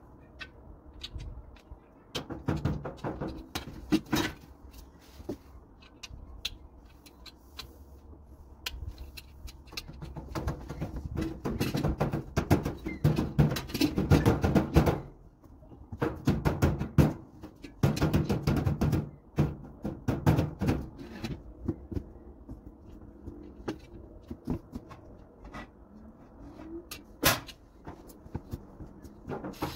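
Knocking and clattering of grill parts being handled and fitted during assembly. It comes in irregular bursts, busiest in the middle, with single sharp knocks between.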